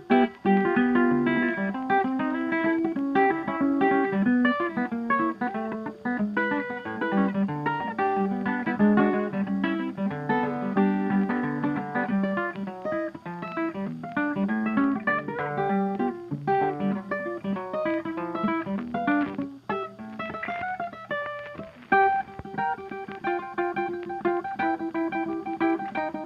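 Background music made of quickly plucked, pitched notes in a busy, continuous run.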